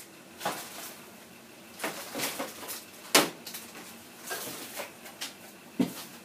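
Handling noises of small plastic parts: a series of separate clicks, knocks and short rustles, the loudest a sharp click about three seconds in and another sharp knock near the end.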